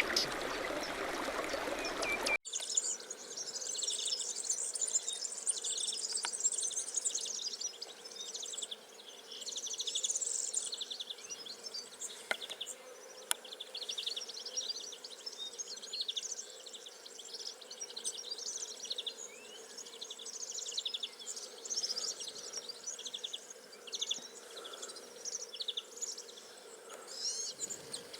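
Dense chorus of insects chirping, many rapid high-pitched pulses overlapping, from about two seconds in after a sudden change from a noisier outdoor background with a few bird chirps.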